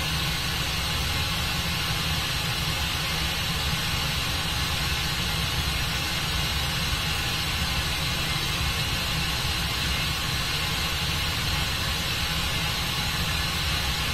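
Air supply of a lab fluidized bed blowing up through a column of white powder: a steady hiss over a low hum, unchanging throughout.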